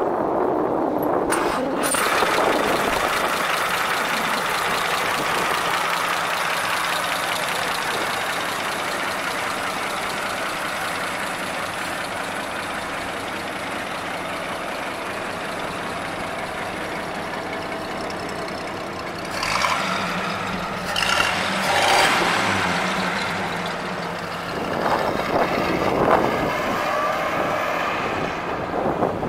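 The 1930 Graham-Paige's 207-cubic-inch straight-six running as the car drives off, with louder surges about twenty and twenty-six seconds in.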